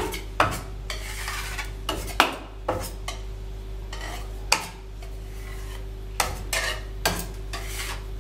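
A metal scraper scraping excess melted chocolate off a filled polycarbonate praline mold, knocking against the mold and the rim of the tempering tank in a string of uneven sharp clicks and knocks with scraping between them. A steady low electrical hum runs underneath.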